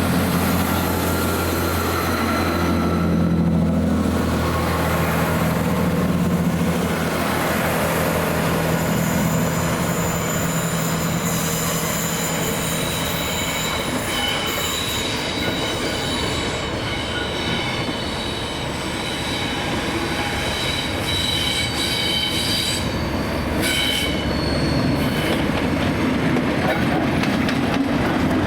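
Train passing: a diesel locomotive's engine running in the first half, then the wheels squealing on the rails in several steady high tones through most of the second half, over continuous rolling rumble.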